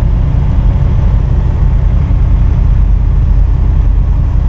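Steady low rumble of a semi-truck's diesel engine and road noise, heard from inside the cab while driving.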